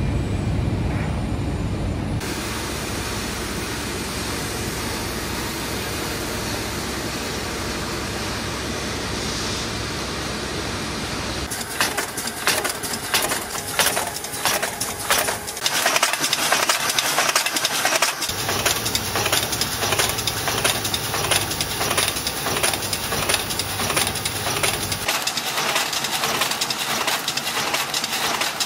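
Tinplate can-making machinery running: a steady mechanical rush for the first ten seconds or so, then a rapid, rhythmic metallic clatter from about eleven seconds in as a can body welding line feeds and forms printed tinplate blanks.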